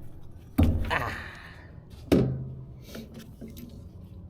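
Two sharp metallic knocks about a second and a half apart, from pliers pulling the wire connectors off a swollen inducer motor capacitor.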